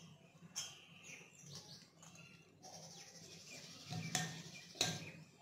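Fresh fenugreek leaves tipped from a plastic colander into a steel mixing bowl of flour: soft rustling with a few sharp knocks, the loudest near the end.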